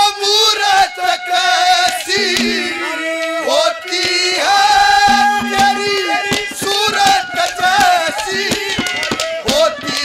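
Haryanvi ragni folk accompaniment playing an instrumental passage: a wavering reed melody over steady hand-drum strokes.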